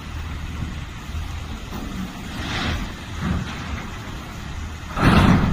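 Reach stacker's diesel engine running with a steady low hum, with a short loud rushing burst about five seconds in and a fainter one about two and a half seconds in.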